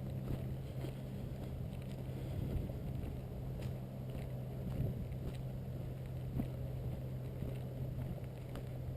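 A hiker's footsteps on a dirt woodland trail, a soft step about every second, over a steady low rumble.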